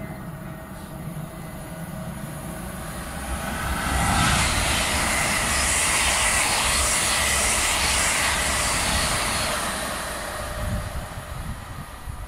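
Electric multiple-unit passenger train running through the station at speed without stopping. The rush of wheels and air builds from about two seconds in, is loudest in the middle, and dies away near the end.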